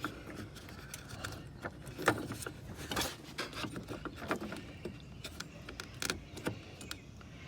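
Light clicks and plastic knocks of hands working at the back of a car's headlight housing, reaching in for the bulb, with a few sharper clicks about two, three and six seconds in.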